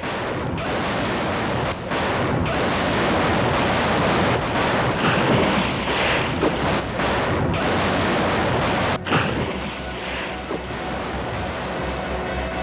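A continuous, fairly loud rushing hiss spread across the whole range of pitch, broken by a few brief dips.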